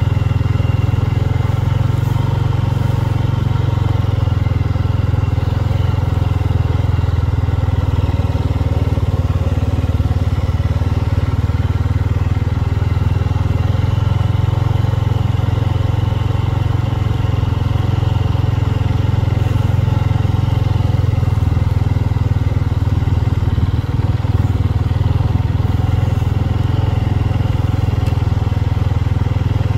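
Honda Rubicon 500 ATV's single-cylinder four-stroke engine running at a steady, even pace while riding, a constant low drone with no changes in speed.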